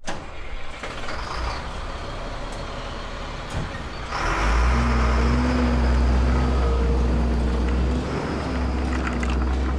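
Heavy truck engine running steadily, growing louder and deeper about four seconds in.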